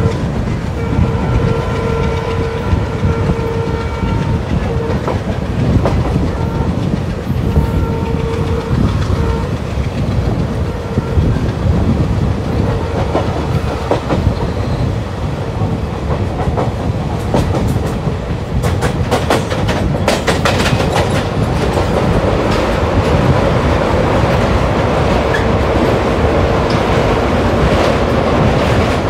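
Two trains passing each other: a locomotive horn sounds in several long blasts over roughly the first nine seconds, over the steady rumble of wheels on rail. From about eighteen seconds in, a rapid run of clickety-clack comes as the passing train's coach wheels cross the rail joints close alongside.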